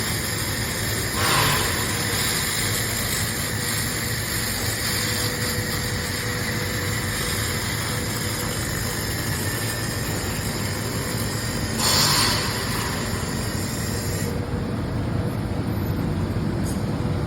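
Handheld fiber laser cleaning machine running while stripping rust from metal: a steady hum and hiss, with two brief louder hisses about a second in and about twelve seconds in. The high hiss falls away about fourteen seconds in.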